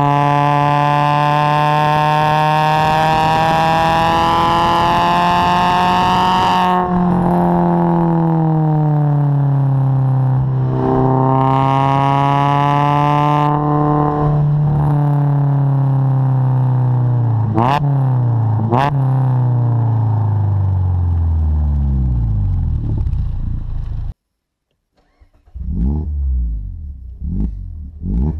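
Mazda MX-5 Miata (ND) with a test full exhaust system, heard at the tailpipe. It pulls up through the revs, lifts off, pulls up again, then slows with two quick throttle blips while the revs fall toward idle. After a sudden cut, a few short revs are heard from inside the cabin with the top down.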